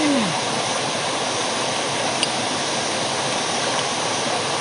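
Water pouring from several pipe spouts into a pool, a steady rushing splash with no change. A single small click sounds about two seconds in.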